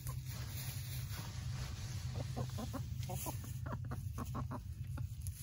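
Hens clucking in short, separate calls, a quick run about two seconds in and another about four seconds in, over a steady low rumble.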